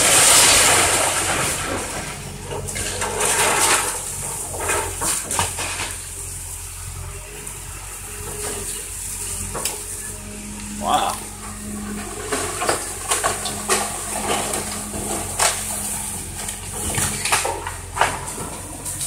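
Diesel engine of a Link-Belt hydraulic excavator running steadily while its bucket tears into a wooden house, with wood splintering and cracking in many sharp cracks. A water hose hisses on the debris, loudest near the start.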